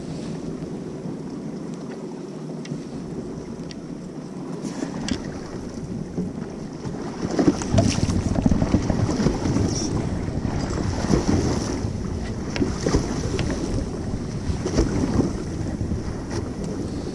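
Small fishing boat under way through choppy sea: wind buffeting the microphone and water rushing and splashing against the hull, louder and gustier from about seven seconds in.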